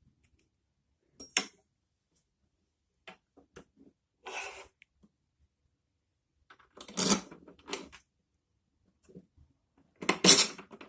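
Scattered clicks, knocks and clattering of the mower's handle parts and fastening hardware being handled and fitted together, with a short scraping rustle about four seconds in and the loudest clatter near the end.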